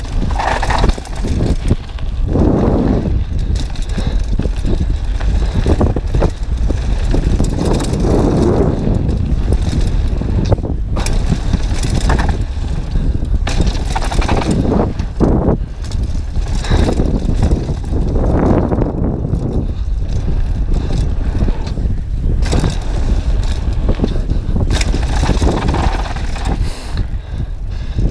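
Downhill mountain bike ridden fast down a gravel forest trail, heard from a camera on the rider: steady wind noise on the microphone over tyre rumble on loose gravel, with frequent knocks and rattles from the bumps.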